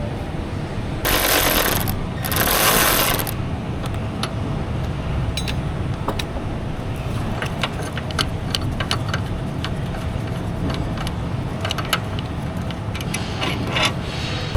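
Two bursts from an air tool, each about a second long, running out a bolt, followed by scattered light metallic clicks and clinks of tools and hardware over steady shop background noise.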